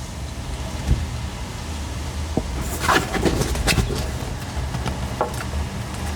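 Window blinds knocking and clattering against the window frame in the wind: irregular sharp taps, with a cluster of them about three seconds in, over a steady low rumble.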